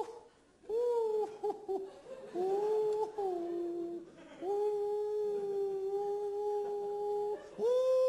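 A man's voice imitating a canary's flat, monotonous call: long held notes on one pitch, a few short clipped ones, and one that slides up and then drops lower about three seconds in.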